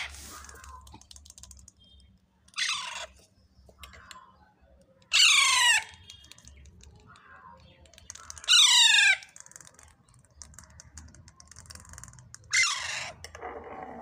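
Alexandrine parakeet chicks giving loud, harsh begging calls that fall in pitch as they are spoon-fed: four calls a few seconds apart, the middle two the longest.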